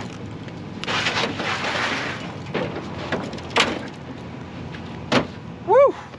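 A beach cart with balloon wheels being loaded onto a pickup truck: a stretch of rustling and scraping, then two sharp knocks about a second and a half apart. Near the end a man gives a short, loud "Woo!"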